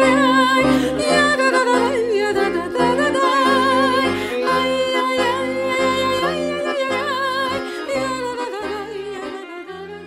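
Violin and piano accordion playing a Jewish folk tune, the violin's wavering melody over a held note and the accordion's bass chords pulsing in a steady rhythm; the music fades out near the end.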